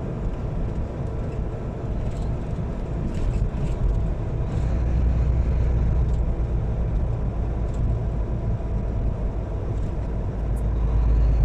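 Truck engine and road noise heard inside the cab: a steady low rumble that grows louder about four seconds in and again near the end.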